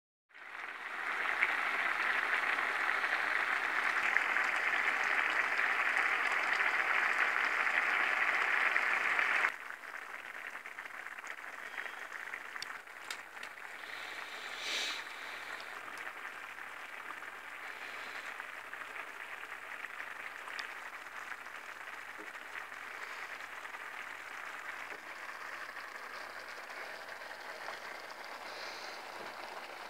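Seafood paella broth boiling hard in the pan, a dense bubbling and sizzling, which drops suddenly to a quieter simmer about nine seconds in. A low steady hum runs underneath.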